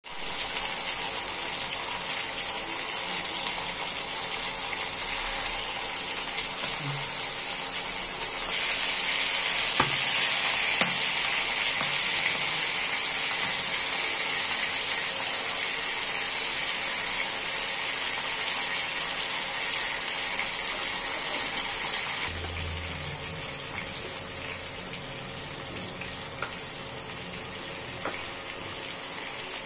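Raw chicken pieces sizzling in hot oil in a non-stick frying pan: a steady frying hiss that grows louder about eight seconds in and drops back to a softer sizzle about twenty-two seconds in, with a few light clicks.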